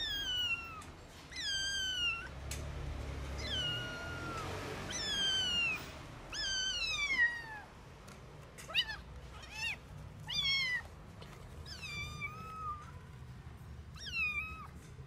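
Young kitten meowing over and over, about a dozen short, high-pitched calls that each fall in pitch.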